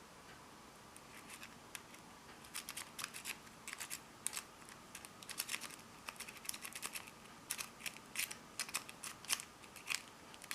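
Le Corbeau moustache rake scraping and clicking against the pins of a pin-tumbler bike lock, raking the lock open. Light metallic clicks come in quick irregular clusters, starting about a second in.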